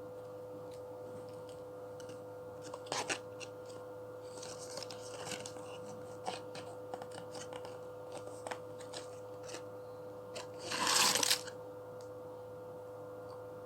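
Cough syrup bottles being handled and knocked about by a baby: scattered light clicks and rustles, with a louder rasping rustle about eleven seconds in, over a steady hum.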